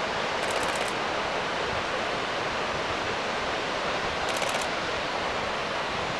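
Steady rushing noise with no clear pitch. Two brief bursts of rapid, high-pitched ticking come through it, about half a second in and again about four seconds in.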